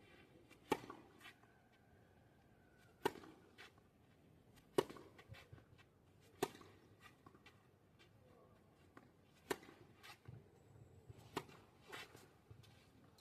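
Tennis balls struck by a racket: about seven sharp pops, one to three seconds apart, with fainter bounces and taps between them.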